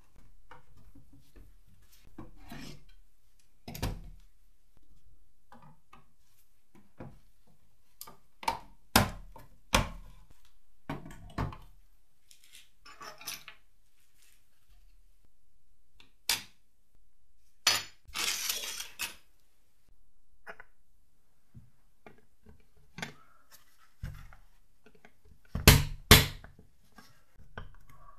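Small painted metal toy-car parts being picked up and set down on a wooden tabletop: scattered clicks and knocks at irregular times, a brief scraping rustle about two-thirds of the way through, and two sharp knocks close together near the end.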